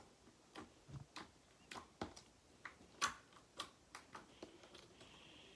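Slime being squished and pressed by hand, giving a string of small sharp clicks and pops about two a second as air bubbles in it burst, the loudest about three seconds in, fading away near the end.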